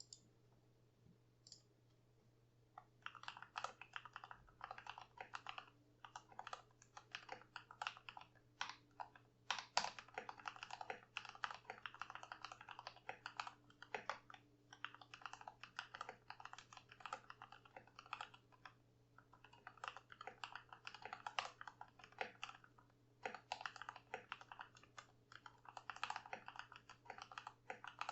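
Steady fast typing on a Keychron V2 mechanical keyboard with pre-lubed Gateron Milky Yellow Pro linear switches and PBT XDA keycaps: a dense run of key clicks and clacks. It starts about three seconds in after a couple of stray keypresses and pauses briefly twice. The stabilizers are unlubed.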